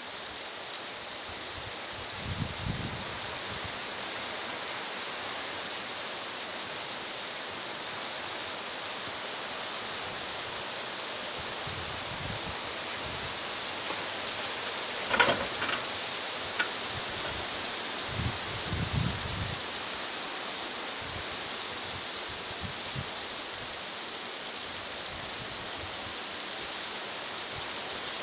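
Steady rain falling. A few short low rumbles come and go, and there is one sharp knock, the loudest sound, about fifteen seconds in, followed by a couple of lighter clicks.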